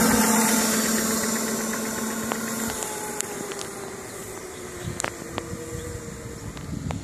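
Electric drive motors of motorized ride-on cooler scooters whining, the whine falling slowly in pitch and fading as the coolers slow down at the end of a race run. A steady hum underneath cuts off a few seconds in, and a few sharp clicks follow.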